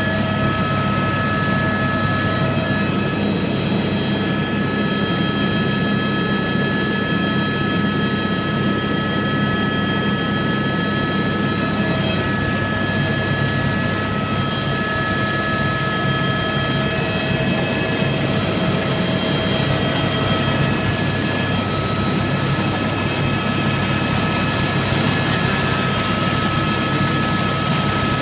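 Helicopter in flight, heard from inside the cabin: a steady, loud drone of engine and rotor with a steady high-pitched whine over it.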